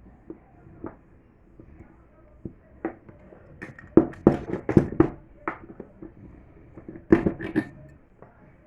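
Irregular clicks and knocks from the parts of a table fan being handled during cleaning and lubrication. The knocks bunch up in a quick run about four seconds in and again about seven seconds in.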